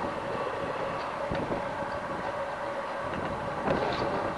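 Steady rushing noise of a windy storm, with a faint steady hum underneath.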